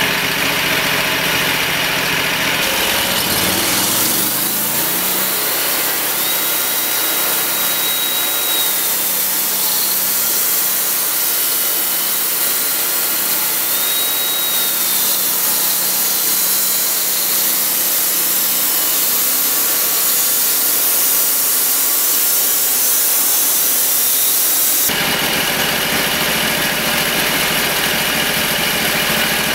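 Homemade bandsaw sawmill with a 22-horsepower V-twin engine: the engine speeds up a few seconds in, and the band blade then runs through a hemlock log with a steady, hissing sawing sound for about twenty seconds. The sound then changes abruptly back to the engine running at lower speed.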